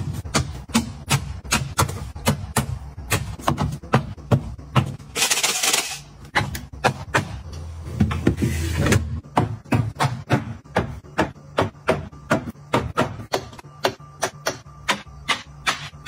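Plastic drink pouches, bottles and tubs set down one after another on a refrigerator's shelves make a quick run of clicks and taps, about three a second. A short rustle comes about five seconds in, and a scrape comes about eight seconds in, when the shelf is handled.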